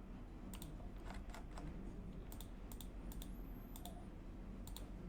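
Scattered sharp clicks from operating a computer, about a dozen, several in quick pairs, over a faint steady low hum.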